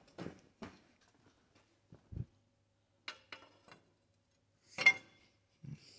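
A few scattered light metallic clicks and knocks, with a dull thump about two seconds in and the sharpest clank near five seconds in.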